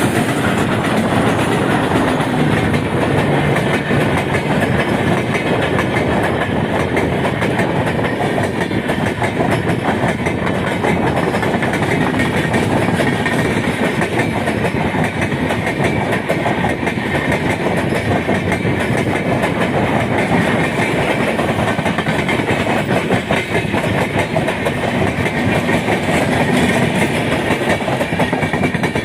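Passenger train running at speed: a steady, loud rumble of steel wheels on the rails with a running clickety-clack over the rail joints.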